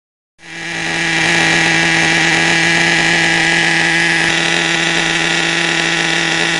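Small combustion engine of a radio-controlled monster truck running steadily as a high, buzzing whine at an unchanging pitch.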